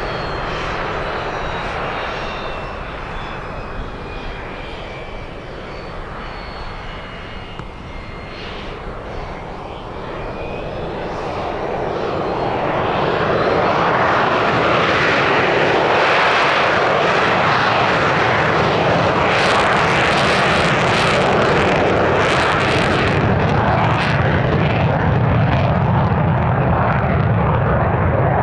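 Draken International A-4 Skyhawk jet engine noise. At first a high whine slides down in pitch as the sound fades. Then, from about ten seconds in, a loud jet roar builds and holds steady.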